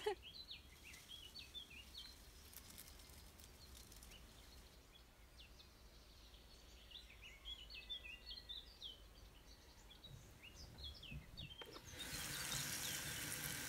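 Faint birdsong, many short chirps and twitters. About twelve seconds in, a kitchen tap starts running water into a glass bowl of strawberries, the loudest sound.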